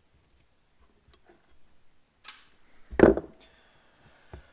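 Small metal carburetor parts being handled during a teardown: light clicks, a short scrape a little over two seconds in, and a louder knock about three seconds in.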